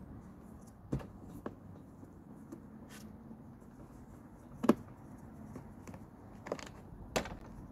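A few sharp clicks and knocks from a screwdriver and screws against the plastic deck of a Flymo hover mower as screws are undone, the loudest a single knock about halfway through.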